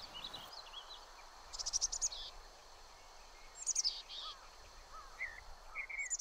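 Small songbirds chirping and singing, with a rapid high trill about a second and a half in and another near four seconds, over faint steady outdoor hiss.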